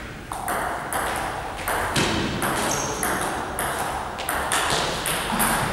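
Table tennis rally: the ball clicks back and forth off the bats and the table in an even run, about two hits a second.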